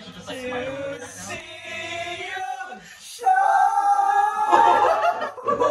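Several men singing together, holding long notes, the singing growing much louder about three seconds in.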